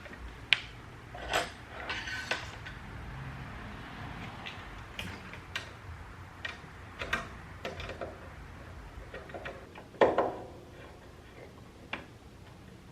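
Irregular clicks, taps and knocks of hand tools and small metal parts being handled at a workbench, with one louder knock about ten seconds in.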